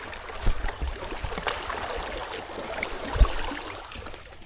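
Water splashing and lapping, with scattered small clicks and two low thumps, about half a second and three seconds in.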